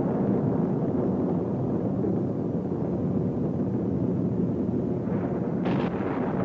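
A loud, steady rumbling noise with no clear pitch, with a brief brighter hiss about five and a half seconds in.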